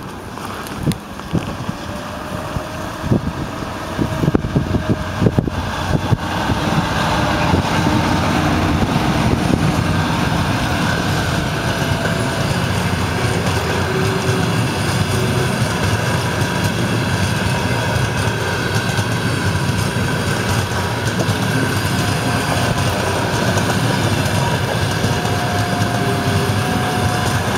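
Passenger train hauled by an EP2K electric locomotive running past at speed. It grows louder and uneven over the first several seconds as the locomotive arrives, then settles into a steady rumble of wheels on rail as the coaches roll by, with a faint thin squeal now and then.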